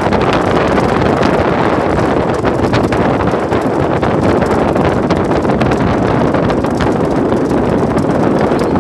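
Steady wind rushing and buffeting over the microphone at the bow of a moving wooden boat, mixed with the boat's running noise.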